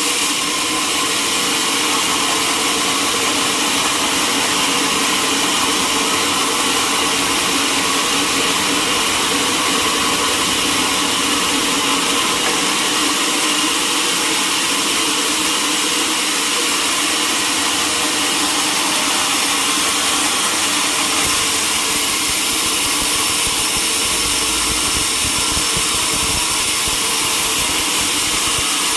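Sawmill machinery running steadily, a constant mechanical din with a few steady tones over a high hiss.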